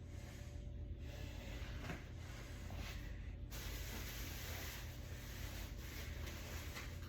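Faint rustling and handling noises from someone searching through things, with a steady hiss that comes in about three and a half seconds in.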